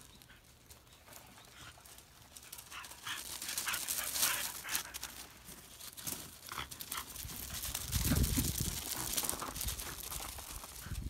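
A dog scrambling over loose gravel while tangled in a rope, the gravel crunching and the rope dragging in irregular bursts, busiest from about three to five seconds in. A heavy low rumble comes about eight seconds in.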